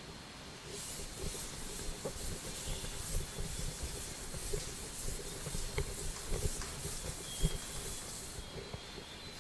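Chalkboard being wiped clean with a hand-held cloth duster: repeated rasping rubbing strokes that start about a second in and stop near the end.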